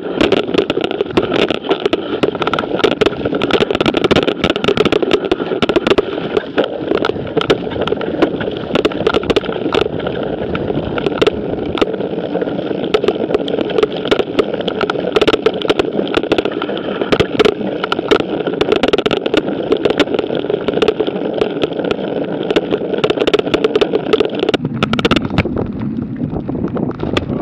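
Mountain bike riding fast over a leaf-covered dirt trail: a steady rush of tyre and wind noise on the camera mounted on the bike, broken by constant rattling clicks from the bike over rough ground. Near the end the sound changes and loses much of its hiss.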